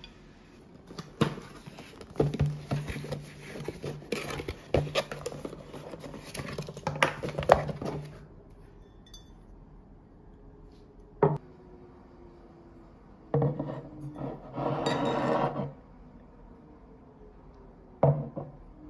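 Tableware being handled on a table: a stainless tumbler and its lid and a ceramic coffee dripper clink and knock. A busy run of clinks lasts for several seconds, followed by single knocks and a brief scrape.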